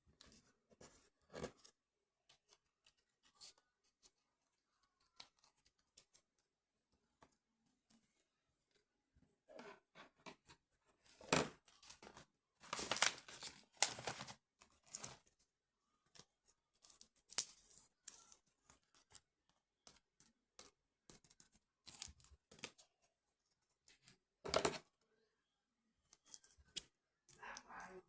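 Intermittent short clicks and rustling handling noises, close up, with a denser run of them around the middle and one sharp louder one a few seconds before the end.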